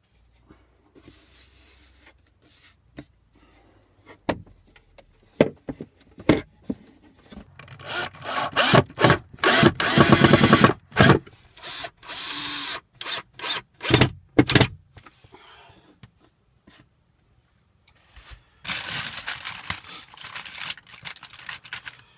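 Power drill boring into wood in short bursts, loudest from about 8 to 15 seconds in and again near the end, with scattered knocks and clicks before it.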